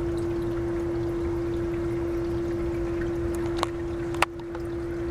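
Steady noise of running water with a constant hum, broken by two sharp clicks a little over halfway through, the second one the louder.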